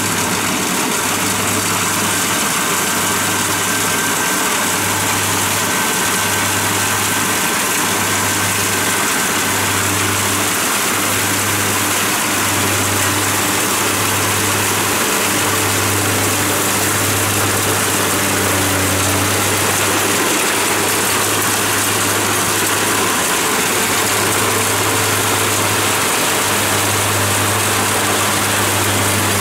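Kubota DC70 Plus combine harvester's diesel engine and threshing machinery running steadily under load as it cuts flattened, lodged rice, with a low hum that pulses about once a second.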